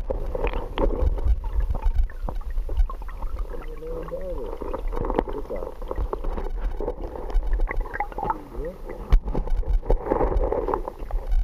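Muffled underwater sound picked up by a camera held in a waterproof housing beneath the surface: water gurgling and a low rumble, with scattered clicks and knocks against the housing or stones.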